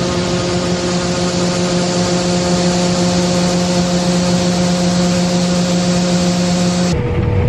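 Harvest machinery running steadily: a steady engine hum with a whine over a loud hiss, changing abruptly near the end to a lower, rougher engine sound without the hiss.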